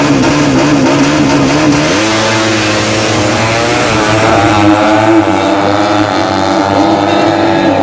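Drag-bike motorcycle engines running at high revs, their pitch wavering; one engine note gives way to another, lower-based one about two seconds in.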